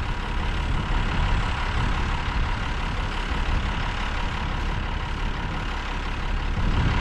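Ford TW-20 tractor's six-cylinder diesel engine running steadily while it pulls ring rolls, heard from inside the cab as an even, low drone.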